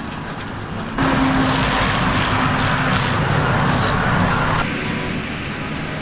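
Water poured from a bucket into the top of an upright PVC pipe, rushing and splashing over the pipe mouth as the pipe fills to prime a siphon. The pouring starts suddenly about a second in and stops abruptly a little before the five-second mark.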